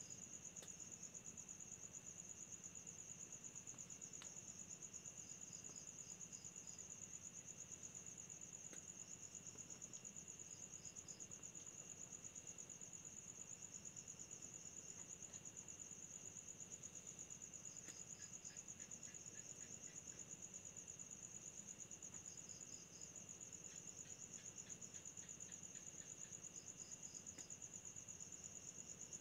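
Faint chorus of night insects: a continuous high-pitched cricket trill, with another insect chirping in short groups of three or four every few seconds.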